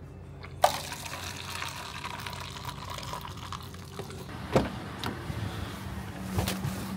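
Coffee streaming from a self-serve urn into a paper cup as a steady splashing hiss, starting suddenly about half a second in and running for about four seconds. A few short knocks and clicks follow near the end.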